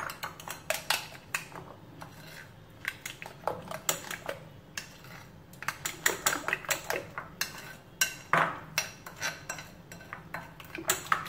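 Metal spoon stirring yogurt and biryani masala in a glass bowl, clinking against the glass in irregular runs of sharp clinks with brief pauses.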